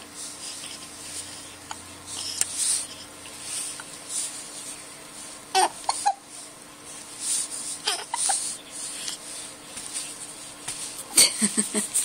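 Newborn baby hiccuping: short, sudden hiccups a few seconds apart, with brief fussy whimpers near the end.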